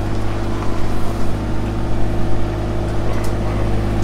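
Diesel engine of a mini excavator running steadily at an even pitch.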